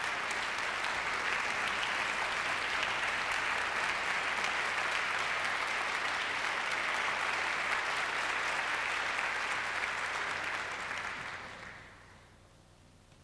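Audience applauding steadily, dying away about eleven seconds in.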